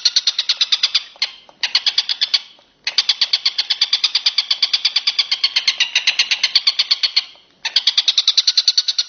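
Walang kecek insect calling, a fast, even run of high-pitched pulses at about a dozen a second. It goes in long trains broken by short pauses about a second in, near three seconds and after seven seconds.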